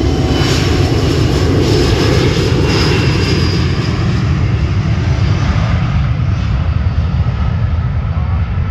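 Jet airliner's engines running loud as it passes close: a deep steady rumble with a thin high whine that fades out about three or four seconds in.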